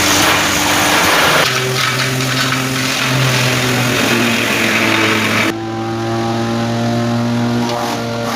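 Wood crusher machine running: a loud harsh noise at first, then the machine's engine hum coming through, stepping in pitch. About five and a half seconds in the harsh noise drops away and the engine runs on more evenly.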